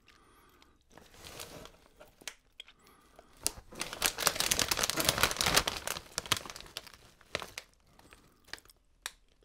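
A Lay's crisp bag crinkling as it is handled, a dense rustling crackle for about three seconds in the middle, with lighter scattered crinkles before and after.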